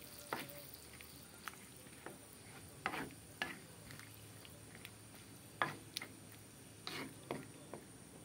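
A ladle stirring cabbage and sausage pieces in a metal wok. It knocks and scrapes against the pan about a dozen times at irregular intervals, over a faint steady hiss from the simmering pot.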